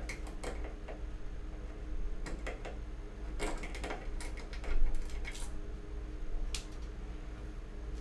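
Scattered small clicks and knocks as the screws and plastic cover plate of a wall light switch are worked loose and taken off by hand, the loudest knock about five seconds in. A steady low hum runs underneath.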